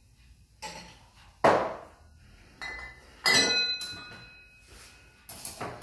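Cocktail shaker and martini glasses handled on a counter while a shaken cocktail is readied for double straining: five sharp knocks and clinks, the loudest about a second and a half in. The clink a little past three seconds leaves a glass ringing briefly.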